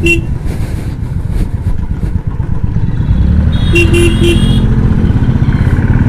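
Motorcycle engine running steadily while riding. A vehicle horn beeps briefly at the start, then gives three quick beeps about four seconds in.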